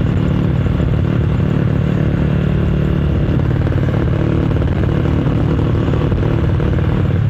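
Motorcycle with an aftermarket exhaust running under way, a loud, steady exhaust note that holds an even pitch.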